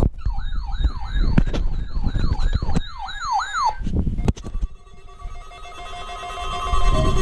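An electronic siren yelp: a pitch that sweeps up and snaps back down about two and a half times a second, with a few clicks over it. It stops after about three and a half seconds, there is a sharp click, and a quieter chord of steady electronic tones then holds to the end.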